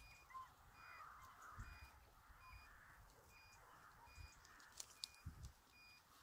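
Near silence: faint outdoor ambience with distant bird calls and a few soft low thuds.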